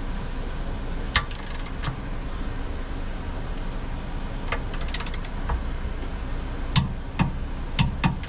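Torque wrench ratcheting on the fifth wheel hitch's grade 8 bolt: scattered metal clicks, a quick run of ratchet clicks about five seconds in, and a few louder clicks and knocks near the end as the bolt is brought up to torque.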